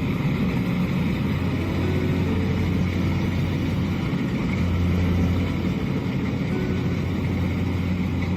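Kubota DC-70 combine harvester's diesel engine running steadily during rice harvesting: a continuous low drone with a constant mechanical whir above it.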